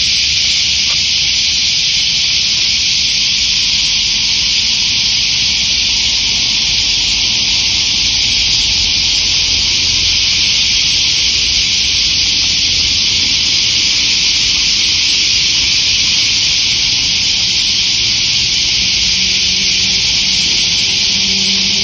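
A loud, steady high hiss that does not change.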